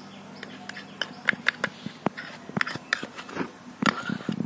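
A metal spoon clinking and scraping against a small steel bowl, with irregular sharp taps as paste is spooned out onto a steel plate of raw mutton and potatoes.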